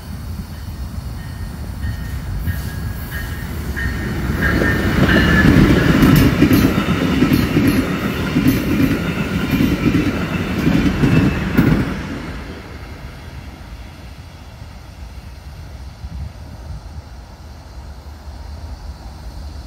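Brightline passenger train passing through a turnout on the diverging route, its wheels clicking rhythmically over the rail joints and switch. The sound builds, is loudest for about seven seconds with repeated clicks, then fades to a lower rumble.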